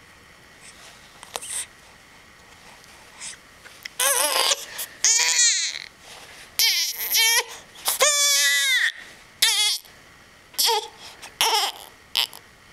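One-month-old baby crying: a few faint squeaks, then from about four seconds in a run of loud cries, each falling in pitch, with shorter ones near the end. The father takes the crying for discomfort from a gas bubble.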